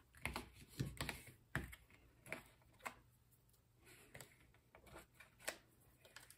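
Faint, irregular clicks and taps of paper and a small pointed craft tool being handled against a tabletop, a dozen or so sharp ticks spread unevenly through the stretch.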